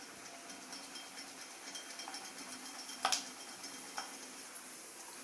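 Peanuts deep-frying in hot oil: a soft, steady sizzle with faint crackles. A sharp clink about three seconds in, with lighter taps near two and four seconds.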